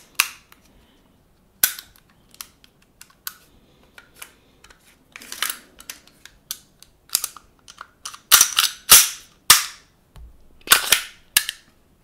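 The slide of an airsoft gas blowback pistol being handled and fitted back onto the frame: a run of sharp clicks and clacks with short scrapes between them. The loudest clacks come in the last third.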